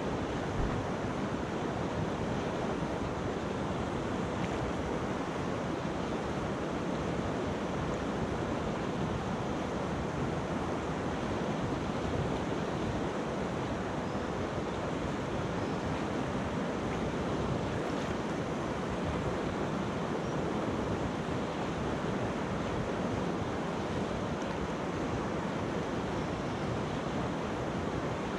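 Mountain river rushing steadily over a pebble bed, an even, unbroken noise of flowing water.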